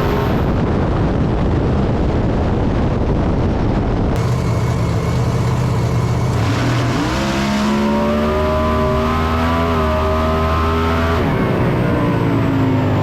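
Race car engines running hard at high revs, in several edited clips that cut off abruptly, with a rise in pitch about seven seconds in.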